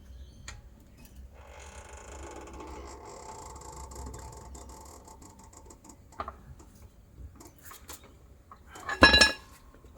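Metallic rattling and clinking from hands and tools working on the exhaust mounts under the car for a few seconds, then small knocks and one loud metal clank about nine seconds in.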